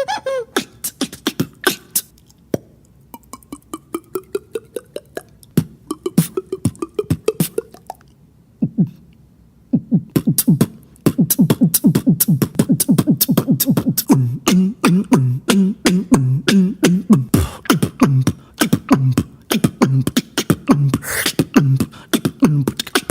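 Vocal beatboxing by one performer: rapid percussive mouth clicks and hits, a run of gliding pitched vocal tones a few seconds in, then from about the middle a fast, steady rhythm of punchy pitched beats with a repeating bass pattern.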